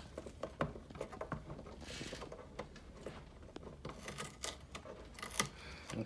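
Scattered small plastic clicks and rustling as hands work the LED cable loose from the tape inside a Tesla Wall Connector's front cover, with a short scratchy rustle about two seconds in and a few sharper clicks near the end.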